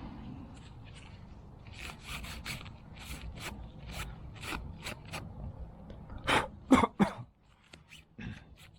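Hands rubbing and scraping at fuel pump assembly parts, most likely cleaning the old, dirty fuel pump filter before reusing it. It is a run of short scraping strokes, with three louder scrapes about six to seven seconds in.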